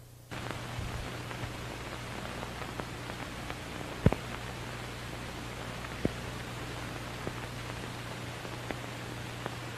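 Hiss and steady low hum of an old film soundtrack with no program sound, dotted with faint crackles, a sharp pop about four seconds in and a smaller one about six seconds in.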